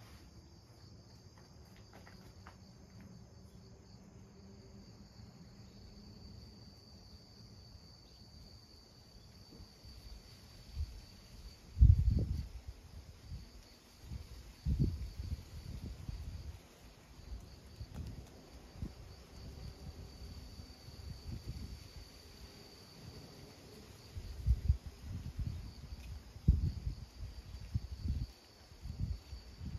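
Insects chirring steadily in a high, even band. From about a third of the way in, irregular low thumps and rumbles cut across them, the loudest near the middle.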